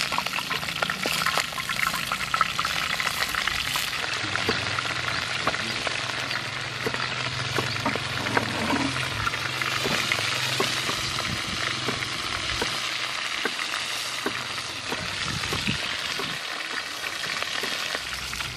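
Cleaver chopping vegetables on a wooden chopping block, irregular knocks that come more often in the second half, over a constant crackling hiss.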